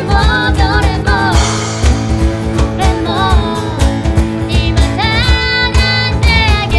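A pop-rock band playing with drums and guitar, under a woman singing the lead vocal in a quick, bouncy melody.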